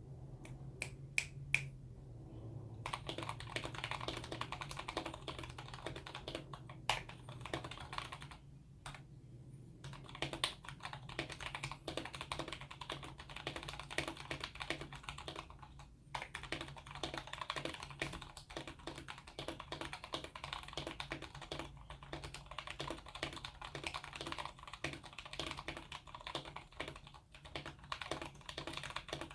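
Tecware Phantom TKL mechanical keyboard being typed on. It has Outemu Clear v2 switches lubed with 68 g springs, clipped and lubed stabilizers and PBT keycaps. A few separate key presses come first, then fast continuous typing from about three seconds in, with a couple of short pauses.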